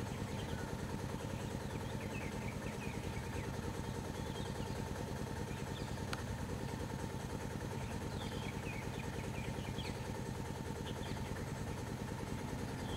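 Engines of stopped road vehicles idling steadily, a low even rumble with a fine pulse. Faint high bird chirps come and go over it.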